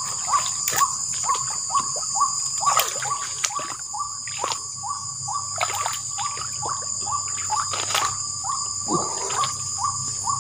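Night chorus of swamp wildlife: a steady high insect trill under a short call repeated about two to three times a second. Several rustles and splashes of vegetation and water are scattered through it.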